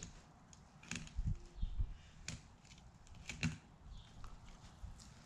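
Fillet knife cutting along a trout's backbone: a few sharp clicks as the blade meets the bones, with soft thuds in the first couple of seconds.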